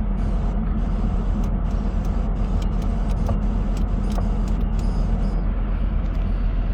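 Holden VY Commodore's Ecotec V6 idling steadily, an even low hum.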